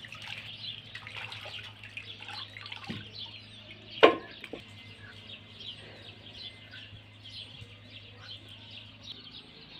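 Water splashing and dripping as singed head and trotters for kelle paça are washed by hand in a metal basin. About four seconds in, one sharp loud knock as a piece is put into a metal pot. Small birds chirp continuously throughout.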